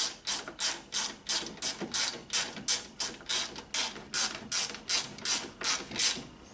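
Hand ratchet being worked back and forth to tighten a bolt: an even run of clicking strokes, about three a second, stopping near the end.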